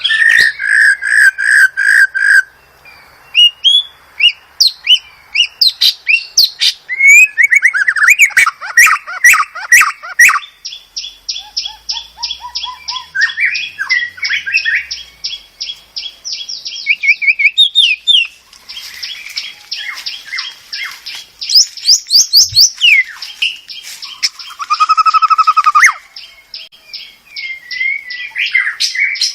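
White-rumped shama (murai batu) singing a long, varied song: fast runs of repeated notes, clear whistles and trills following one another with only brief gaps.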